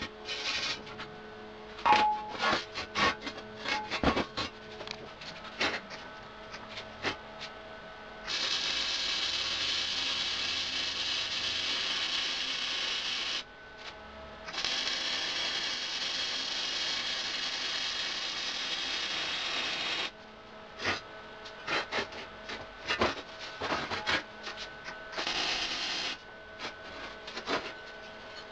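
Flux-core wire welding: the arc runs as a steady crackling hiss in two beads of about five and six seconds, with a short break between, and a brief third bead near the end. Before and between the beads there are clicks and scrapes of steel pieces being handled.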